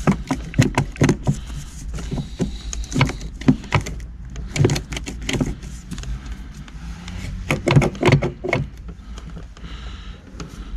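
Irregular metal clicks, clacks and rattles in clusters with short pauses, from hands working at a VW T4 van's handbrake lever and its ratchet mechanism, over a steady low hum.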